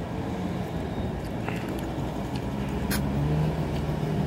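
Road traffic: a car engine's low rumble that grows louder near the end, with a couple of short clicks.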